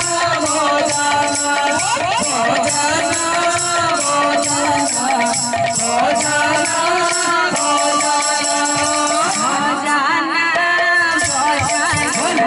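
Sambalpuri kirtan music: a woman singing held, bending devotional lines over double-headed hand drums and jingle rings keeping a steady beat.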